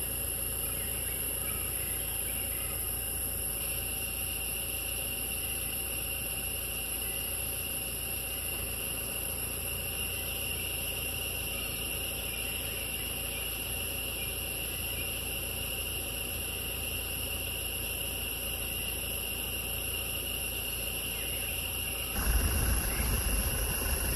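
Forest insects droning a steady high-pitched note over a low, even rumble. Near the end a louder, rougher low noise comes in.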